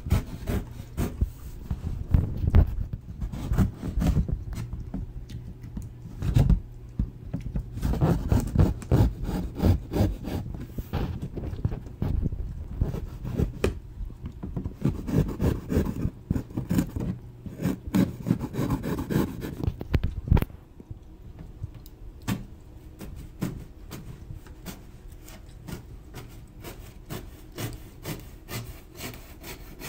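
A small folding pocketknife sawing and slicing through a corrugated cardboard box, with rough scraping and rubbing strokes as the blade is worked along the seams. The cutting is dense and loud for about twenty seconds, then turns fainter and sparser with scattered small ticks.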